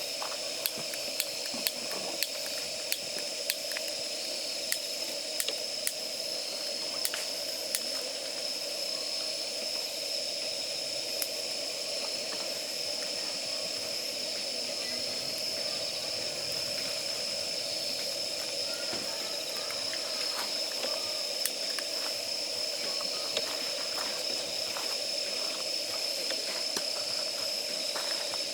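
Gas burner flame hissing steadily on damp firewood, with sharp pops and crackles from the wood, most frequent in the first dozen seconds.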